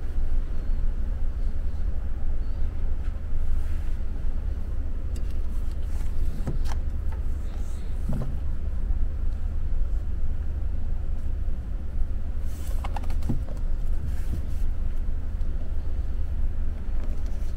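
Steady low rumble, with a few light clicks and knocks scattered through it.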